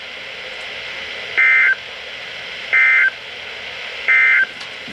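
Three short EAS/SAME end-of-message data bursts, each about a third of a second and about 1.4 seconds apart, over steady radio hiss. They are the warbling digital tones that mark the end of the flash flood warning.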